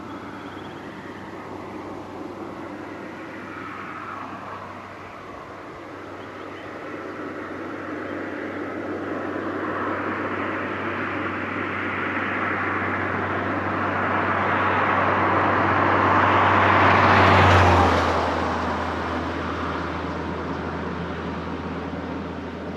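A vehicle passing by: a steady low engine hum under a rushing noise that swells to a peak about 17 seconds in, then drops slightly in pitch and fades away.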